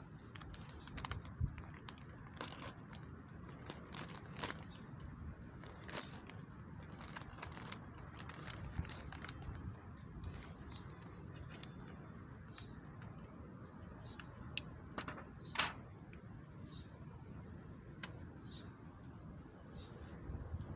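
Wood fire crackling with irregular small pops and one louder pop about two-thirds of the way in.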